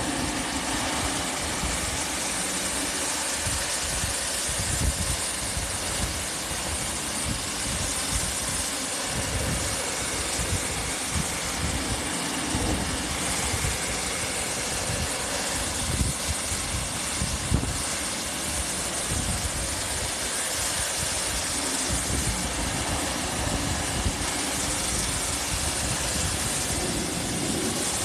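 Pressure washer spraying: a steady hiss from the water jet over an uneven low rumble from the machine.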